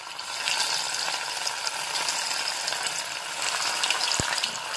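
Breadcrumb-coated paneer cubes deep-frying in hot ghee in a kadai: a steady sizzle with fine crackling.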